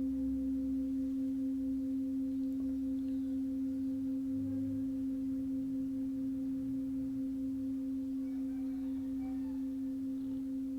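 Tibetan singing bowl ringing on as one steady low tone with a fainter overtone about an octave above, its loudness wavering slowly and evenly and fading very slightly.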